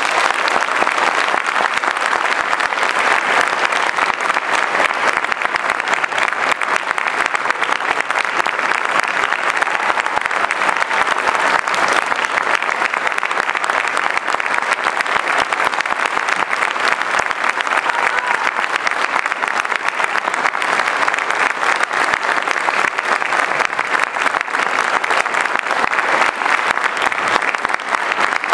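Audience applauding, a long, steady ovation in a concert hall.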